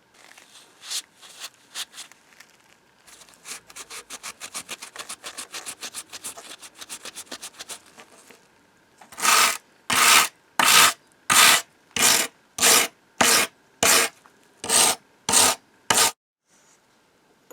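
Rhythmic hand rubbing on a cast iron drawer pull, abrasive strokes against the metal. First there are quick short strokes about five a second, then slower, louder strokes about one and a half a second apart.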